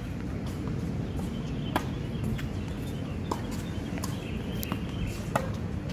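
Sharp knocks of a tennis ball on an outdoor hard court, struck by rackets and bouncing, about half a dozen spread over the few seconds. A steady low background rumble runs underneath.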